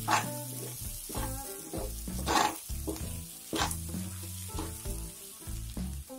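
Wooden spatula stirring dry puffed rice in a nonstick pan, several scraping, rustling strokes with the strongest about two and a half seconds in. Background music plays underneath.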